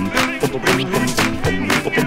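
Live swing-style music from turntables and a loop station, with a ukulele played over a steady beat.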